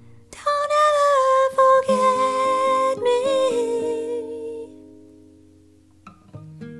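A woman's wordless vocal line over sustained acoustic guitar notes. It comes in loud about half a second in, holds a high note, slides down around three seconds in and fades away. Plucked acoustic guitar notes start again near the end.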